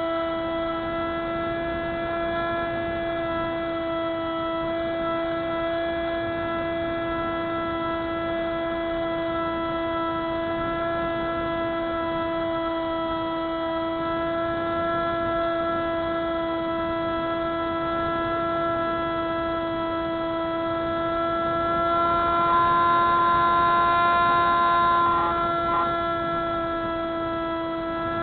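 Electric motor and propeller of a Spyhawk FPV model plane in flight, a steady pitched drone. About three quarters of the way through it grows louder and a little higher as the throttle is opened, then settles back.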